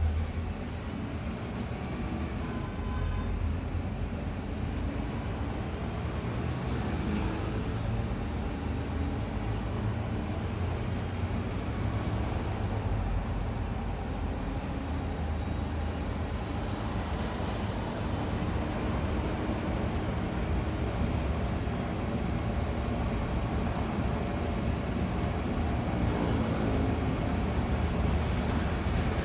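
A bus on the move: steady engine and road rumble, low and even throughout.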